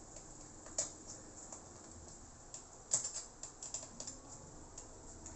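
Scattered light clicks and taps of a screwdriver and small metal and plastic parts being handled on an open laptop. There is a sharper click about a second in, another about three seconds in, and a quick run of small ticks just after it.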